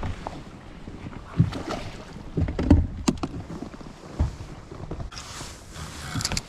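Choppy waves slapping and lapping against a fishing boat's hull, with a few irregular low knocks and wind on the microphone. A hissy rush of wind and water comes in during the last second and a half.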